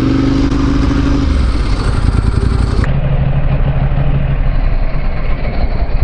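Motorcycle engine running at low revs while riding slowly in traffic, with a steady rushing noise, and the sound changes abruptly about halfway through.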